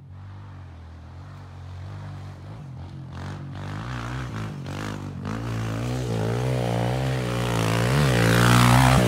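Kawasaki KLX 140's single-cylinder four-stroke engine approaching, growing steadily louder, its pitch rising and falling over and over as the throttle is worked.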